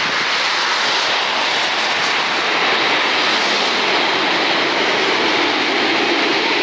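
Qantas Boeing 787-9 Dreamliner on final approach with gear down, its twin GEnx turbofans making a loud, steady rushing jet noise that swells slightly midway as the airliner passes low and close overhead.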